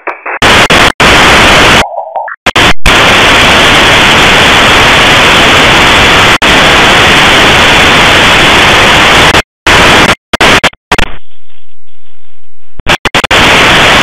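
Loud, steady hiss of shortwave radio noise played through an online SDR receiver tuned in AM mode near 11975 kHz. It cuts out briefly several times and goes thinner and quieter for about two seconds near the end.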